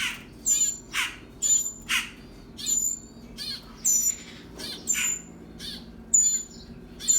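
Birds calling over and over in short, sharp chirps, roughly two a second, each with a high thin note.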